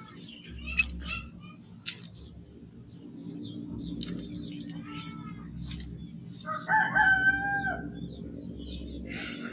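Sooty-headed bulbul calling in short whistled and chirping notes, with a louder, drawn-out crowing call of about a second, like a rooster, about seven seconds in. A steady low hum runs underneath.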